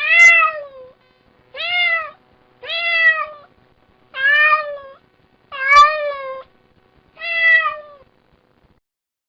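Kitten meowing six times in a row, each meow under a second long and rising then falling in pitch: a whiny, coaxing mew.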